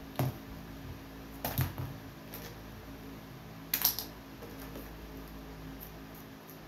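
Plastic toy pieces clacking against each other and against a plastic bin as they are handled, in three short bursts of clicks spread over the first four seconds.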